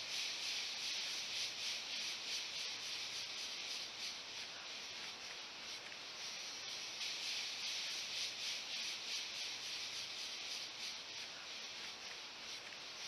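Steady, high buzzing hiss of an insect chorus in the forest, unbroken throughout.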